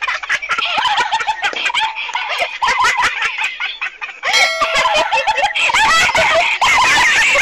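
A dense clamour of many bird calls at once, chirping and clucking and overlapping without pause. About four seconds in, a held whistle-like tone joins for a second or so.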